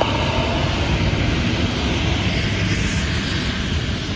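Full-size school bus driving past, its engine and tyre noise steady throughout.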